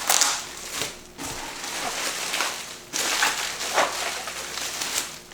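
Packaging crinkling and rustling in bursts as an item is unwrapped and pulled out of a shipping box.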